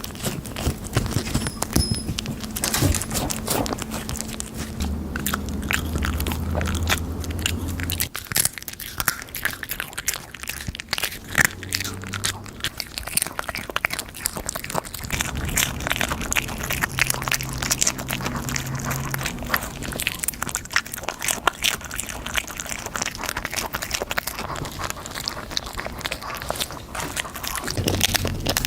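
Close-up crunching and chewing of crisp chips by a pet dog and cat: a dense, irregular run of sharp crackling bites without a pause.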